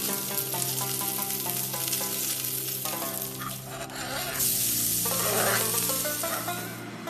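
Food sizzling as it fries in a pan, a steady hiss that grows louder from about the middle and drops away just before the end, over light background music.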